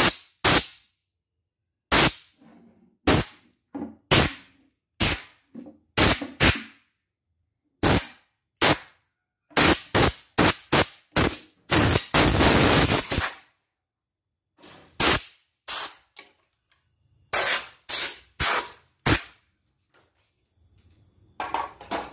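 Compressed-air blow gun on a coiled hose fired in short, sharp blasts, about twenty in all, with one longer blast of about a second and a half about twelve seconds in: dust being blown out of a plastic embroidery-machine housing.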